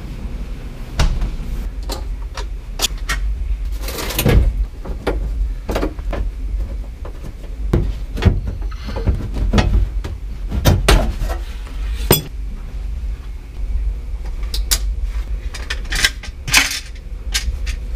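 Irregular clicks, knocks and scrapes of a car's interior trim panels being pried loose, pulled out and handled, over a constant low hum.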